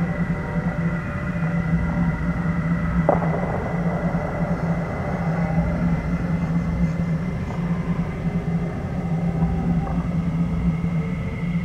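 Dark ambient drone music: a low pulsing drone with a thin, steady high tone above it, and a single sharp click about three seconds in.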